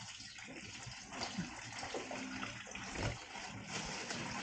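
Tap water running into a kitchen sink basin over a plate of fish, with a few light knocks as the plate is handled.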